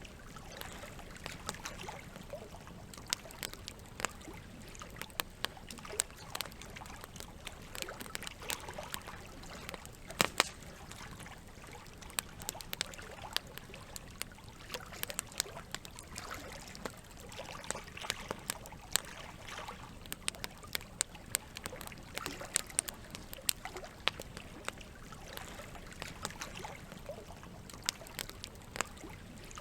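Wood campfire crackling, with irregular sharp pops, the loudest about ten seconds in, over a soft trickle and lap of water.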